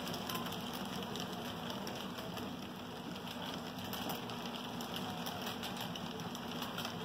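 HO scale model freight cars rolling past on the track: a steady rolling hiss with light, irregular clicking from the wheels on the rails, over a faint steady hum.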